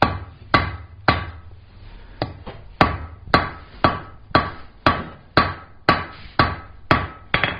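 Hand hammer striking hot 3/8 inch square steel bar on an anvil, forging the shoulder of a ball end: a steady run of about thirteen blows, roughly two a second, after a short pause near the start. Each blow rings briefly from the anvil.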